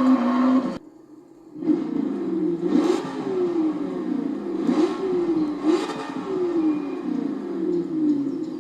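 A vehicle engine being revved over and over, each blip rising quickly in pitch and falling away more slowly, with a few sharp cracks among the revs. It is preceded by a steady held engine note that cuts off abruptly about a second in.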